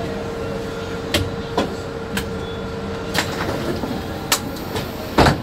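Mercedes Citaro C2 city bus heard from inside: a steady running hum with a constant tone, broken by several sharp clicks and knocks. Near the end comes a heavy thump, after which the running noise drops noticeably quieter.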